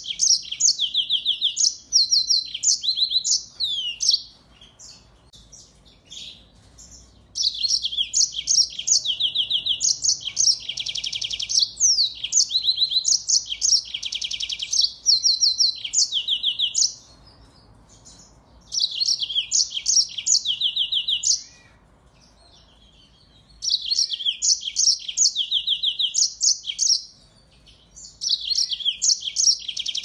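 Yellow-fronted canary singing in bouts of rapid, high trills and chirps, five songs in all with short pauses between them, one of them running on for about ten seconds.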